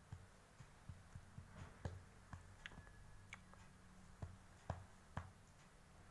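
Faint, irregular wet clicks, roughly two a second, from a cotton swab working inside a Dalmatian's pus-filled ear.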